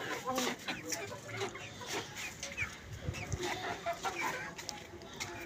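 Several domestic hens clucking in a string of short, scattered clucks.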